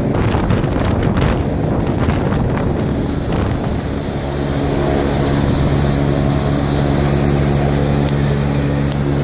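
Helicopter touching down, its rotor downwash buffeting the microphone with gusty, pulsing noise for the first three seconds or so. After touchdown it sits running on the ground with a steady, even turbine and rotor drone.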